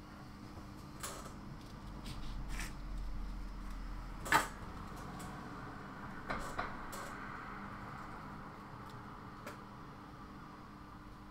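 Small clicks and knocks of parts and tools being handled on a workbench as a circuit board is fixed in helping-hand clips and a soldering iron is brought to it. The loudest is one sharp click about four seconds in. A faint steady hum runs underneath.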